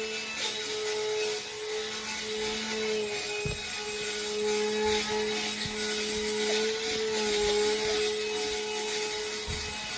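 Electric motor and propeller of a small indoor RC airplane running in flight: a steady buzzing whine whose pitch and loudness waver slightly with throttle changes.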